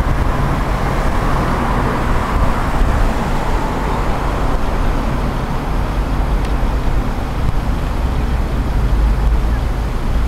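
Road traffic noise from cars and buses on a wide city road: a steady rush with a heavy low rumble.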